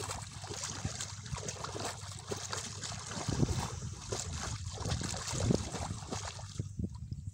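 Shallow pond water splashing and sloshing as a woven basket fish trap is worked in it. Heavier splashes come about three and a half and five and a half seconds in, and the splashing dies down near the end.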